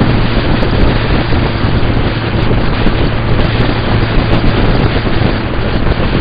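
Heavy wind rushing over the microphone of a moving motorcycle at road speed, with the steady low drone of the Suzuki Bandit 1200's inline-four engine underneath.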